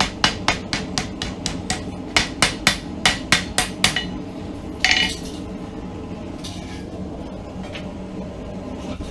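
Hand hammer striking a piece of railroad-spike steel on an anvil in quick blows, about four a second, rounding the piece off. The blows stop about four seconds in, a single metallic clank follows a second later, and a steady low hum runs underneath.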